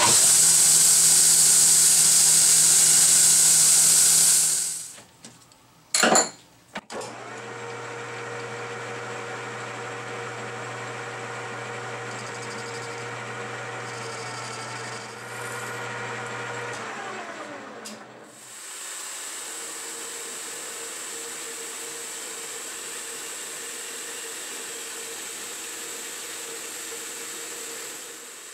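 A belt grinder grinds a metal part with a loud hiss for about the first four and a half seconds. After a brief loud burst, a 9x20 benchtop metal lathe runs steadily while turning a part. Its tone slides down about two-thirds of the way through, then it runs steadily again.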